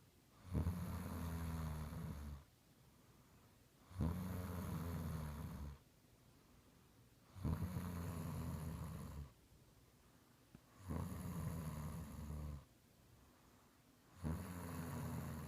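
Snoring in a steady rhythm: five low-pitched snores about three and a half seconds apart, each lasting nearly two seconds, with quiet breathing gaps between them.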